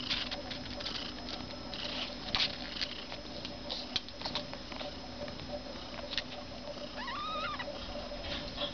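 Newborn kittens squeaking and making small scratchy clicks as they shuffle against their mother, with one short, high, rising-and-falling kitten mew about seven seconds in.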